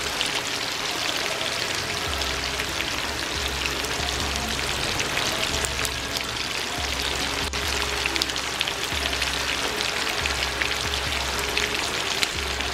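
Gilbaka fish steaks frying in hot oil, a steady sizzle full of fine crackles, with background music underneath.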